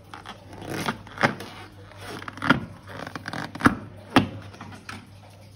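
Hands squeezing and rubbing a long latex balloon: rubber squeaks and rubs, with a few short, sharp squeaks at irregular moments.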